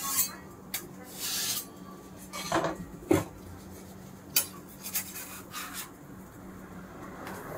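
A crepe spatula scraping and tapping against a hot crepe griddle as a cooked crepe is loosened and lifted: a series of short scrapes and clinks about a second apart, with a longer scrape about a second in.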